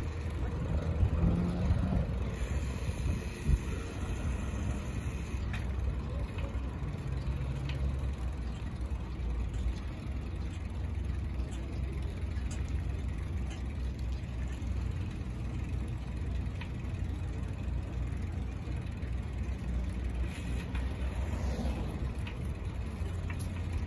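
Steady city street traffic ambience heard from a moving bicycle: a constant low rumble under a wash of street noise, with a few faint ticks and a short hiss that swells and fades near the end.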